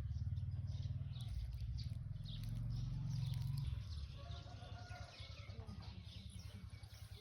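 Small birds chirping, with a low rumble on the microphone during the first four seconds.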